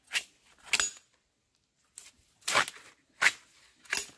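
A series of about five sharp knocks or clinks at uneven intervals, with a short quiet pause after the first two.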